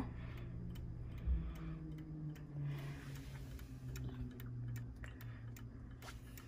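Hermle 1050-020 clock movement ticking, its escapement beating in an even rhythm. The movement is fully wound yet runs only because it was tapped into motion, and it is slowing toward a stop, a sign that it will not keep going on its own.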